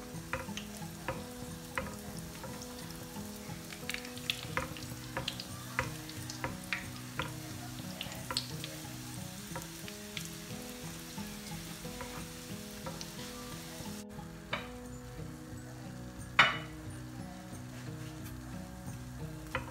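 Yeast-dough beignets deep-frying in hot oil, a steady sizzle with frequent sharp crackles and pops. Quiet background music plays underneath, and one louder click comes near the end.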